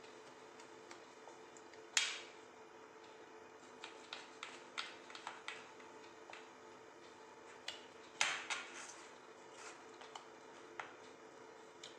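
A knife cutting into peanut-jaggery chikki spread on a plate, making scattered knocks and scrapes, the loudest about two seconds in and a cluster around eight seconds in. The chikki has cooled but not fully hardened, so it still cuts.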